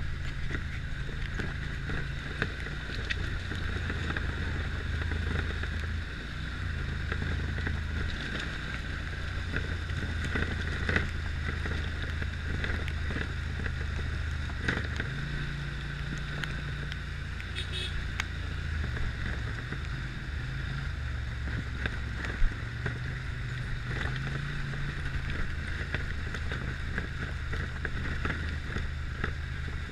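Side-by-side UTV engine running steadily at low speed over a rough dirt track, its pitch shifting up and down a little, with scattered knocks and rattles from bumps.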